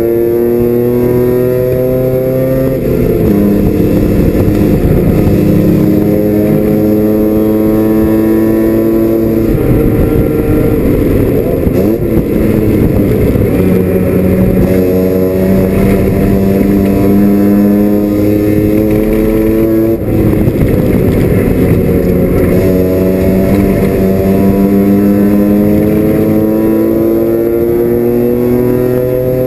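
Mazda RX-7 FC's 13B twin-rotor rotary engine at race pace, heard from inside the stripped cabin: its pitch climbs steadily as it pulls through each gear and drops back at the shifts, a few times over.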